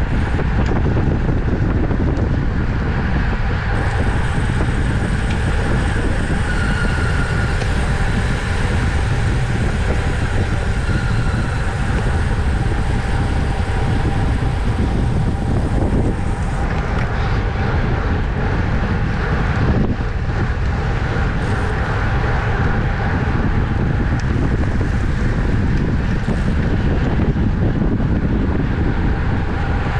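Steady wind noise buffeting the microphone of a camera on a racing bicycle moving at speed.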